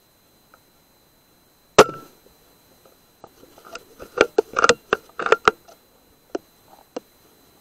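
A single shot from a BSA R10 .22 pre-charged air rifle: a sharp crack a little under two seconds in, with a brief ring after it. A couple of seconds later comes a quick run of clicks and knocks, then two last clicks near the end.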